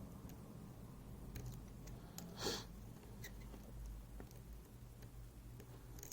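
Faint, scattered small clicks of lock-picking tools working the pins of a MIWA U9 lock cylinder, over a low steady hum. A short breath of air, louder than the clicks, about two and a half seconds in.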